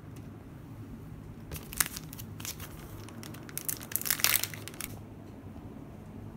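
Clear plastic sticker sleeve crinkling as it is handled: a run of crackly rustles starting about a second and a half in, densest near the four-second mark, stopping at about five seconds.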